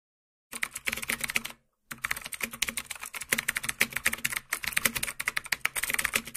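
Rapid typing on a keyboard, many clicks a second: a short run, a brief pause, then a longer run that stops suddenly.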